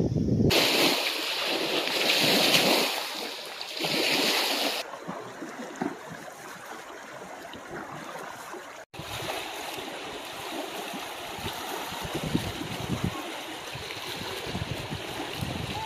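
Wind and small waves washing against a rocky lake shore, with gusts buffeting the microphone in uneven low rumbles. The sound drops out for an instant about nine seconds in, then goes on as steadier washing water and wind.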